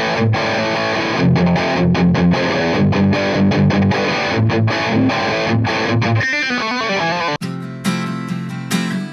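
Distorted electric guitar riff played through a guitar amp and miked at the speaker cabinet with a handheld dynamic microphone, repeated low notes with a steady rhythm. After about six seconds a last chord rings out. Near the end it switches abruptly to an acoustic guitar being strummed into the same mic.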